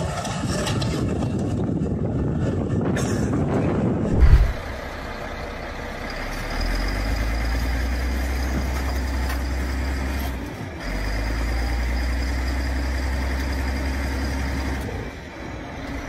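Heavy diesel machinery working. First a dense rough noise as a Caterpillar machine crushes a car, ending in one loud thump about four seconds in. Then a bulldozer's diesel engine drones low and steady as it pushes a large boulder, easing off briefly about halfway through.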